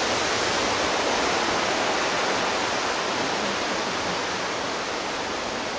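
Whitewater mountain river rushing steadily over rapids, growing slightly fainter toward the end.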